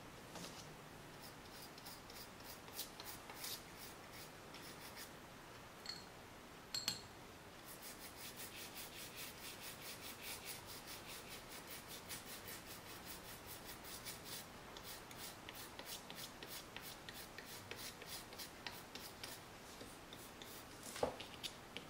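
Small brush scrubbing a wet iPhone 4S logic board: faint, quick back-and-forth strokes, scattered at first, then steady at several strokes a second. One sharp click about a third of the way in.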